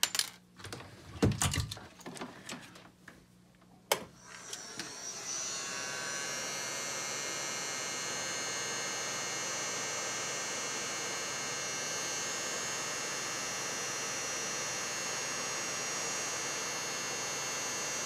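A few clicks and rattles of small parts being handled, then a sharp click about four seconds in as an electric heat gun switches on. Its fan then runs with a steady whir and a fine high tone, shrinking heat-shrink tubing over a soldered spade connector.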